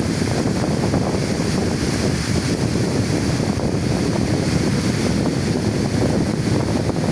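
Waterfall running with a steady, loud rush of water, heaviest in the low end.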